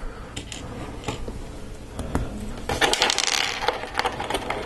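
Hard plastic LEGO Technic parts clicking and rattling as they are handled and fitted together, with a short scraping rustle about three seconds in.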